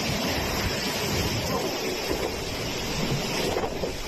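Steady rushing roar of strong wind buffeting the microphone, mixed with the jet engines of a Boeing 737-800 airliner landing in a gusty crosswind.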